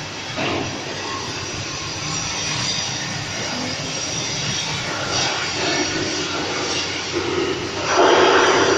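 Machinery of a cantilever H-beam welding machine running with a steady mechanical noise, growing louder and harsher near the end.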